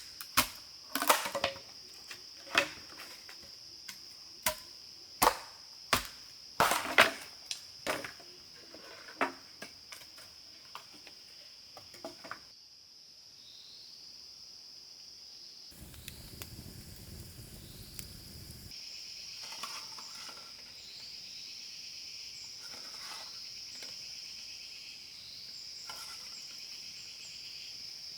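A series of sharp chopping knocks, roughly one a second, over a steady high drone of insects. The knocks stop about twelve seconds in, and the insect drone carries on with scattered chirps.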